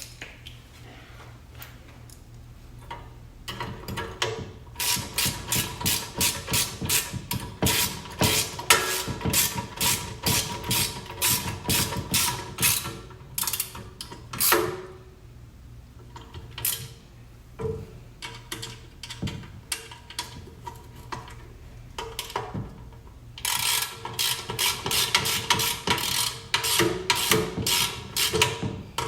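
Hand ratchet wrench clicking in quick runs of strokes as bolts on intake parts are tightened. One long run lasts about ten seconds, there are a few odd clicks, and a second run starts near the end.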